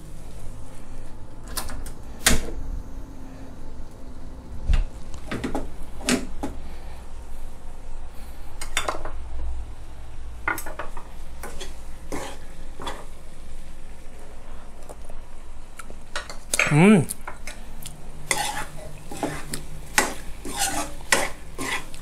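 Metal ladle scraping and clacking irregularly against a nonstick frying pan as shrimp in a thick salted-egg sauce is tossed over low heat, with the food sizzling under it. A brief vocal sound about two-thirds of the way in.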